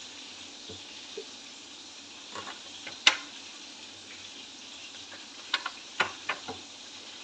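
Steady sizzle of chicken frying in hot oil in a pan, with a few light knocks as marinated chicken pieces are set down in an air fryer's metal basket: one about three seconds in and a quick cluster near the end.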